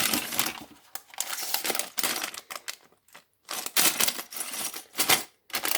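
Sealed plastic bags of LEGO pieces being handled and taken from the box, rustling with the small bricks rattling inside in irregular bursts.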